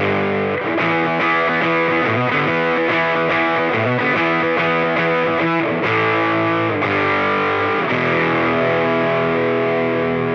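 Gibson SG electric guitar played through an EarthQuaker Devices Crimson Drive germanium overdrive pedal into a small Fender Champ amp: a distorted run of chords and notes, ending on a chord left to ring for the last couple of seconds.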